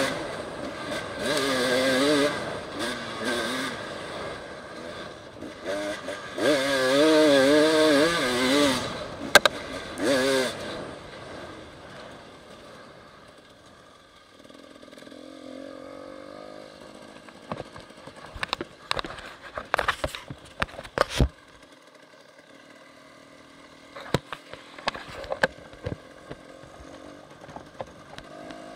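Enduro dirt bike engine revving up and down hard for about the first ten seconds, then dropping back to a quieter, low, steady run. Scattered sharp knocks and clatter follow in the second half.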